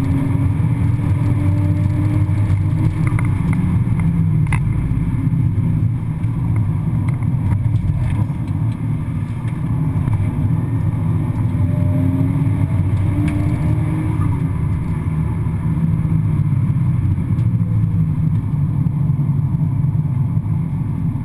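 Nissan Skyline R33 GTS-t's turbocharged straight-six running hard under load on track, heard from inside the cabin, its pitch climbing as it revs, with brief lifts off the throttle between pulls. A sharp click sounds about four and a half seconds in.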